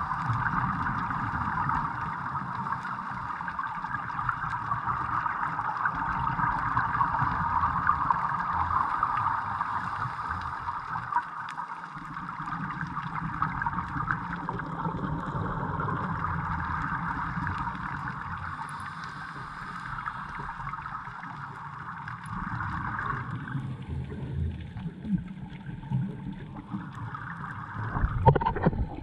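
Underwater noise picked up by a camera in its waterproof housing: a steady muffled hiss with a low rumble, thinning out about two-thirds of the way in. Near the end come louder bubbling and knocking as a scuba diver passes close.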